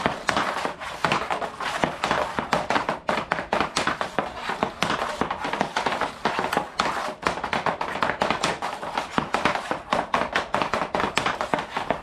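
Hockey stick blade stickhandling a puck on a plastic dryland training mat: rapid, irregular clicks and taps of the puck against the blade and the mat, several a second.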